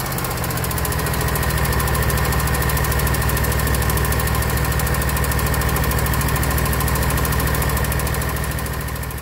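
Kawasaki FX691V air-cooled V-twin running steadily with a light tick from under the valve cover, a sign of excess valve lash; the cylinder 1 intake valve was found loose at about 0.010 in. against a 0.004–0.006 in. spec. The sound fades near the end.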